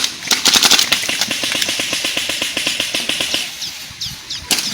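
Airsoft gun firing on full auto: a rapid, even rattle of more than ten shots a second lasting about three and a half seconds, then a short pause and another burst near the end.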